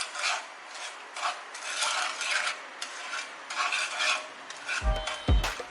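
Sugar being stirred into ginger water in a pan, the utensil scraping around the pan in repeated, irregular strokes as the sugar is dissolved into the syrup for cough drops. Music with a deep beat comes in near the end.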